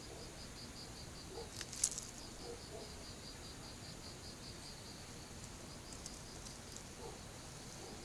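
A cricket chirping steadily, about five short high chirps a second, with one sharp click just under two seconds in.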